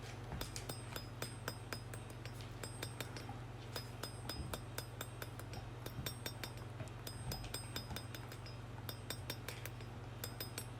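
Hand hammer striking high-carbon steel on an anvil while forging a knife handle: a quick run of ringing metallic strikes, several a second with short pauses, over a steady low hum.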